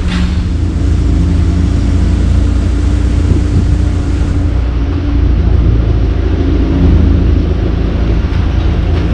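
Jeep engine running steadily while driving, heard as a continuous low rumble.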